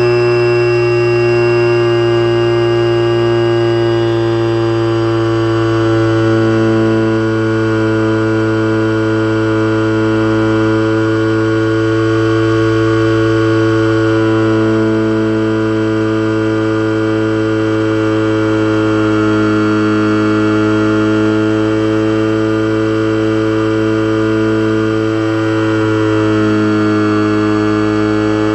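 Electric motor and propeller of an Eagle II RC trainer plane in flight: a loud, steady whine made of several tones at once, heard close up from a camera on the plane. The pitch sags a little and comes back up twice in the second half.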